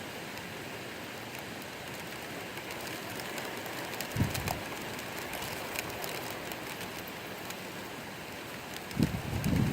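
Steady thunderstorm rain with scattered drops ticking, and two brief low rumbles, about four seconds in and near the end.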